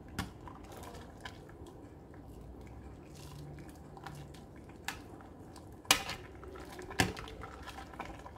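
A stainless-steel ladle stirring vegetable soup in a stone-coated pot, knocking sharply against the pot about five times, loudest near the end. In between, broth trickles back from the ladle into the pot.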